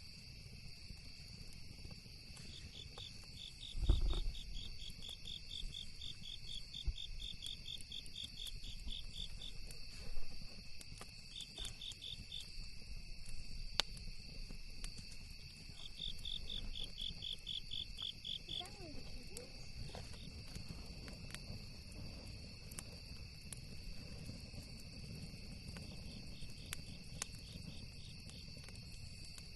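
Crickets chirping in a steady chorus, with runs of rapid pulsed chirps that start and stop, over a low rumble. A campfire crackles with scattered sharp pops, and there is one dull thump about four seconds in.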